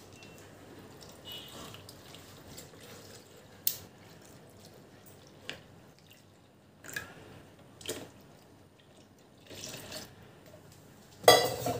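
Milk pouring from a steel pot into a plastic blender jar over biscuits: a faint trickle with a few sharp drips and light clinks, and a louder knock near the end.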